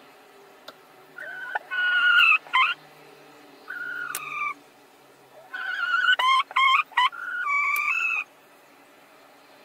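Laying hens crowding the same nest box, giving drawn-out squawking calls that step up and down in pitch. The calls come in several bursts from about a second in until a little past eight seconds, with short quiet gaps between them.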